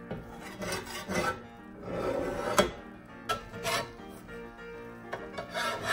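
Metal spatula scraping stuck-on pancake batter across a flat stovetop griddle in a series of irregular strokes; the griddle was not greased, so the pancake has stuck.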